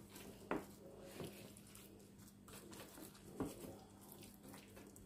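Hands patting and rubbing seasoning into raw steak slices on a metal tray: quiet soft handling sounds with a few light taps.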